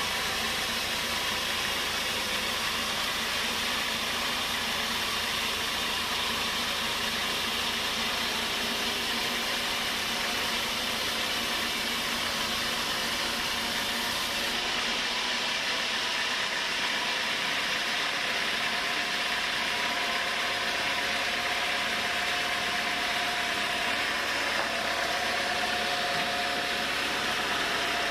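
Sawmill running steadily with engine and blade noise, as a large log is sawn into planks. Partway through the highest sounds ease off, and later a steady mid-pitched tone joins in.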